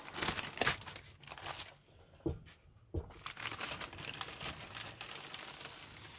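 Thin clear plastic bag crinkling and rustling as plastic kit sprues are pulled out of it. Loudest in the first two seconds, with a couple of sharp clicks of the sprue frame, then a softer rustle.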